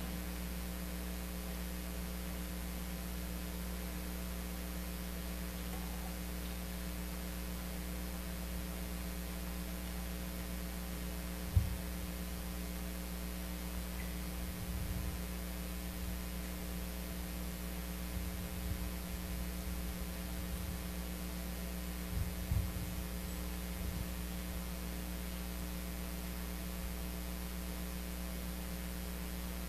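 Steady electrical mains hum in the audio feed, with a few soft low thumps; the loudest thump comes about eleven and a half seconds in, and a small cluster follows about twenty-two seconds in.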